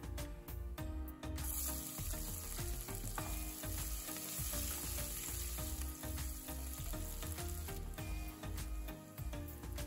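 Sliced onions hitting hot oil and whole spices in an aluminium pressure cooker, a loud sizzle that starts suddenly about a second and a half in and dies down near the end, with a wooden spatula stirring. Background music plays throughout.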